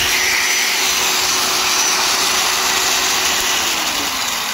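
Vintage Wolf Cabmaster 1/4-inch 250-watt electric drill running steadily at full speed with a high whine, then winding down near the end as the trigger is let go.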